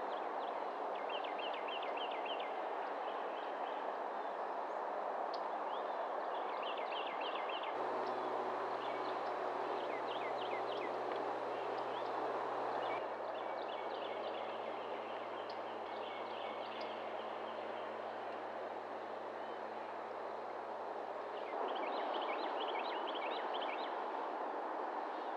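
Songbirds chirping in quick runs of high notes, repeated every few seconds over a steady background rush.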